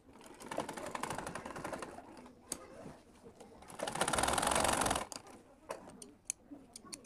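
Black Singer sewing machine stitching through cloth in two runs: a short one near the start and a louder one about four seconds in, each a fast, even chatter of the needle. A few separate clicks fall between and after the runs.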